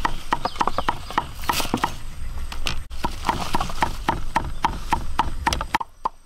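Rapid, steady chopping with a knife on a wooden board, about six even strokes a second, as food is minced.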